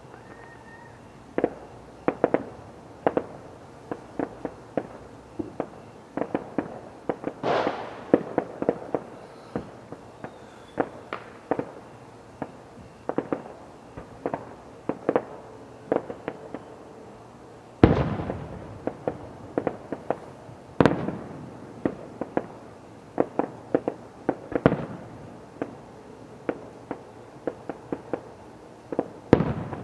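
Fireworks show: an irregular run of sharp bangs and cracks, at times several a second, with a few much louder booms among them.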